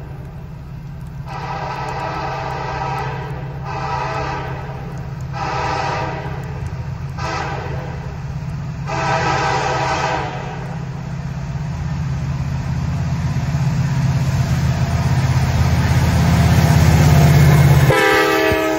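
Freight train horn on approaching CN diesel locomotives sounding a series of blasts, long, long, short, long, the pattern of a grade-crossing signal. The diesel engines' low rumble then builds as the locomotives close in, and the horn sounds again, lower in pitch, as the lead unit passes.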